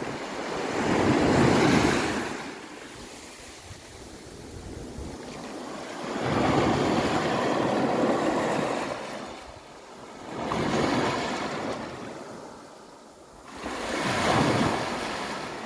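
Small waves breaking and washing up over a sandy beach, the surf swelling and falling away four times, a few seconds apart.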